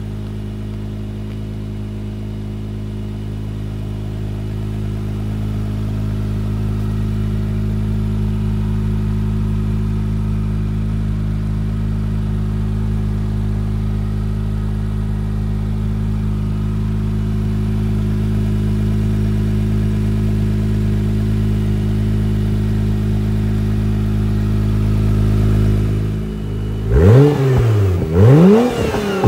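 2017 Acura NSX's 3.5-litre twin-turbocharged V6 idling steadily through its exhaust. Near the end it is revved twice in quick succession, the pitch rising and falling with each rev.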